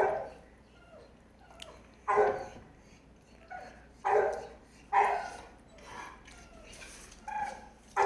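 A male dog barking in loud single barks about every one to two seconds, with softer whines between. He is worked up by a female dog in heat.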